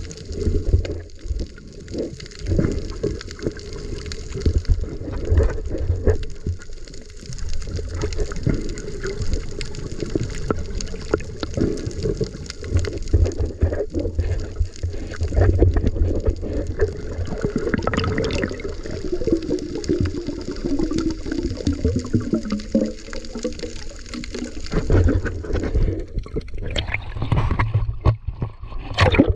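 Water sloshing and gurgling close to the microphone, with scattered knocks and bumps throughout.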